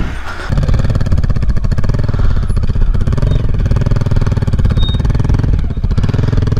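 Off-road motorcycle engine running steadily under load as the bike is ridden over rough ground.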